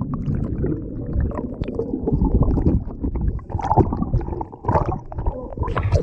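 Underwater sound heard through a submerged camera: a muffled, low rumble of water churning with bubbles, with many small clicks and crackles of bubbles and knocks against the housing.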